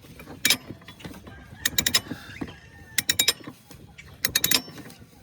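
Socket ratchet wrench clicking in four short bursts about a second apart as it is worked back and forth to loosen a mower blade nut.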